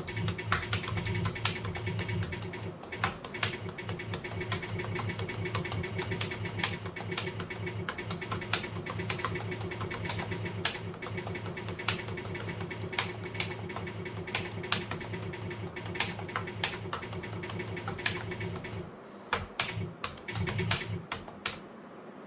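Fast, continuous typing on a computer keyboard, several keystrokes a second over a low steady hum. About three-quarters of the way through, the hum drops away and the typing thins to a few scattered key presses before stopping.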